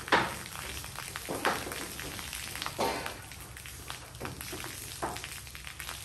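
Corrugated metal roof sheets knocking and popping under a worker's weight as he moves along the roof. There are four sharp knocks, the loudest at the very start and the others at intervals of one to two seconds, with a light crackling between them.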